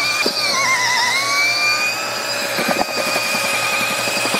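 HPT cordless mixer drill on speed 1 running steadily, its paddle churning stiff, partly dry mortar. The motor whine sags in pitch about half a second in under the heavy load and recovers without stalling, with a few knocks about three seconds in.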